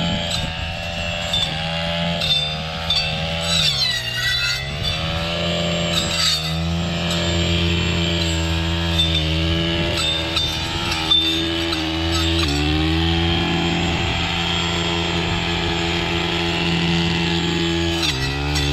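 Chainsaw running and cutting cedar, its engine pitch sagging under load and climbing back several times, with scattered sharp cracks of wood.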